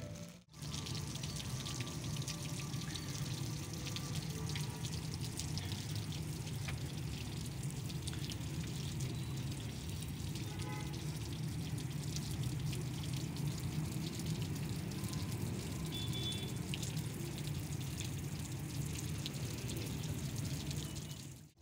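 Small fountain jet splashing steadily into a pond, an even rush of falling water with fine splashes all through.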